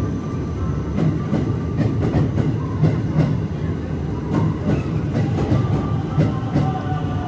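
Electric express train rolling along the platform: a steady rumble of wheels with repeated clicks over the rail joints. Near the end a whine falls slowly in pitch as the train slows.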